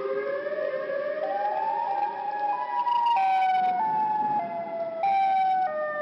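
A broken outdoor tornado warning siren: several out-of-tune tones sound together and climb slowly for the first couple of seconds. They then jump abruptly down and up between pitches, a step a little over every half-second, instead of making a smooth wail. The malfunction gives it a creepy, strange sound.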